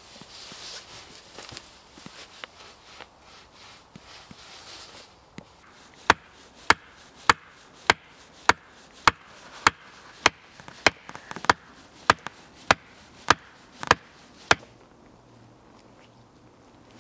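Axe chopping into wood: after a few seconds of rustling, about fifteen sharp, evenly spaced chops come a little under two a second, then stop.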